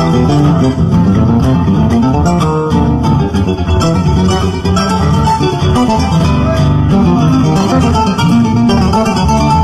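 Instrumental folk tune on plucked guitars with a Herle electric bass playing a busy line of quick plucked notes underneath.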